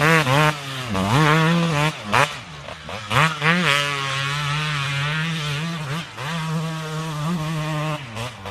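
Two-stroke motocross bike engine being ridden hard. The throttle is chopped and reopened several times, so the pitch dips and climbs, with a steadier held stretch in the middle.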